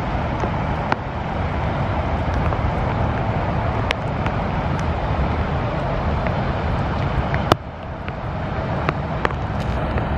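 Steady outdoor background noise, a low rumble under a broad hiss, with a few faint clicks and one sharp click about seven and a half seconds in, after which the noise briefly drops.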